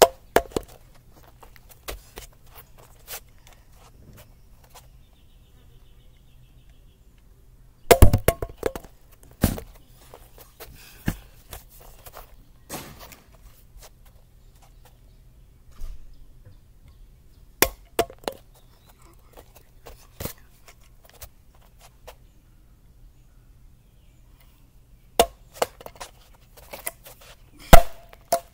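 Plastic Prime drink bottle tossed and landing on a concrete slab, bottle-flip style: sharp knocks and thuds in scattered clusters, the loudest burst about eight seconds in and another near the end.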